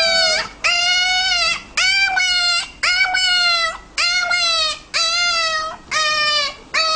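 A pet crying out over and over, about one cry a second, each a high drawn-out whine that rises and then falls in pitch.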